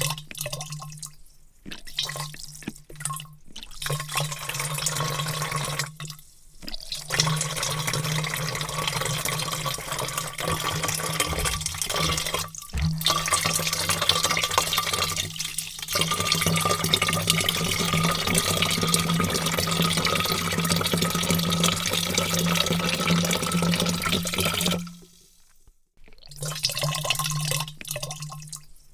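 Heavy stream of water pouring into a vat, a steady rushing splash with a low hum beneath it. It cuts out briefly several times and stops for about a second near the end before starting again.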